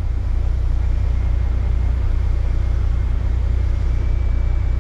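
Grain truck's diesel engine running with a steady low drone.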